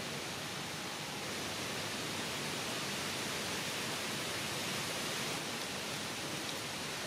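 Steady, even hiss of outdoor background noise, with no distinct sounds standing out.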